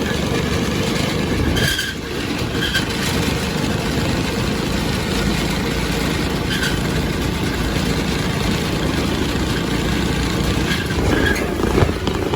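Go-kart running loudly and steadily, with a few short high squeaks over the noise from a part rubbing against the frame; the fly-swatter wedge meant to stop the squeak has not cured it.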